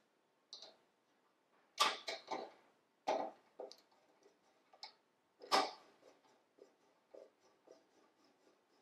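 Metal clicks and knocks from round-nose pliers gripping a French horn rotor's stop arm and working it back and forth to free a dry, frozen rotor. The clicks are scattered, with the loudest about two seconds and five and a half seconds in, then a run of faint light ticks near the end.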